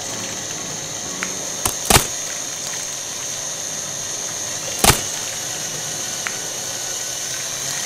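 Electric hand mixer running steadily with a high whine, its beaters whisking a milky liquid mixture in a stainless steel bowl. Sharp knocks come about two seconds in and near five seconds.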